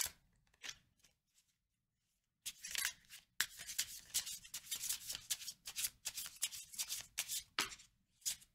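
A deck of tarot cards being hand-shuffled: quick runs of crisp card-on-card flicks, a pause of about a second and a half, then a long dense run of shuffling. Near the end there are two single snaps as a card comes off the deck onto the table.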